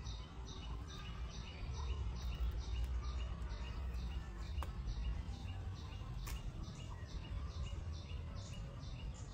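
A high chirping call repeated evenly, about two or three times a second, over a steady low rumble of outdoor noise, with a couple of brief clicks midway.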